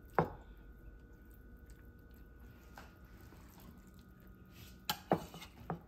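Slotted metal spoon scooping wet sautéed shredded zucchini out of a stainless skillet into a ceramic casserole dish: a sharp clink at the start, soft wet sounds, then a few quick knocks of the spoon near the end.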